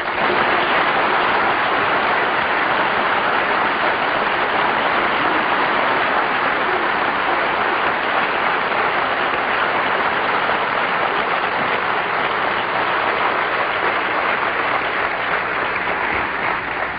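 Audience in a large lecture hall applauding steadily, dying away near the end.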